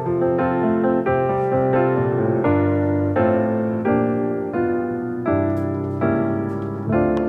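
Background piano music: a melody over held chords, with new notes struck about every half second to second.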